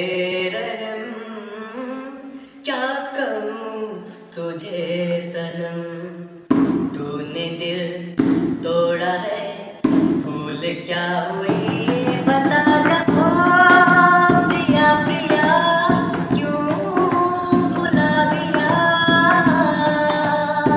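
A man singing a Hindi song over a steady held drone. Drum accompaniment comes in about six seconds in, and the music grows fuller and louder about halfway through.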